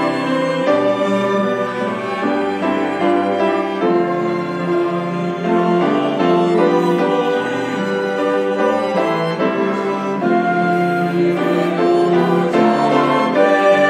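Small instrumental ensemble of violin, cellos, piano, flute and clarinet playing a slow instrumental interlude of a choral anthem. The choir is not singing; the sound grows a little louder near the end as the next verse approaches.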